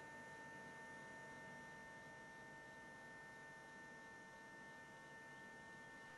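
Near silence: a faint, steady electrical hum with a thin high tone and light hiss.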